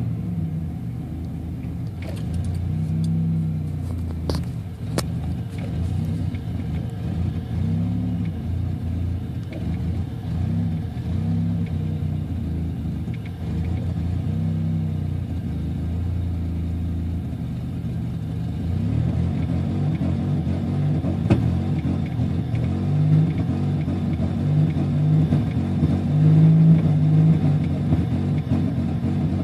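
Buick Regal's supercharged 3800 V6 running, its engine note rising and falling again and again as it is revved, with a few sharp clicks about two, four and five seconds in. The owner reports a continuing misfire when the engine is run in the morning.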